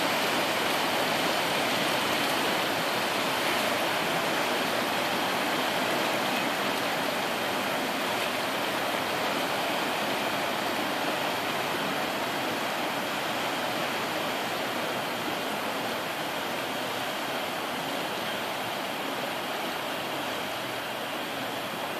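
Churning propeller wash from the departing S.S. Badger car ferry, rushing and swirling along the pier wall. It is a steady hiss that slowly fades as the wash settles.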